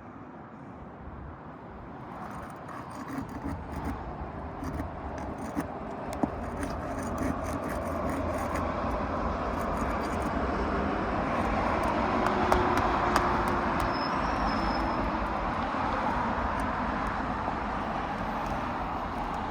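Road traffic: a passing vehicle whose tyre and engine noise swells to a peak about twelve seconds in, then eases off slightly.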